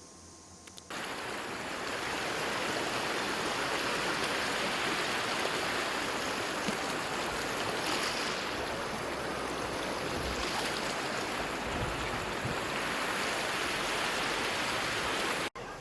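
Steady rushing of water, an even noise that starts abruptly about a second in and cuts off suddenly near the end.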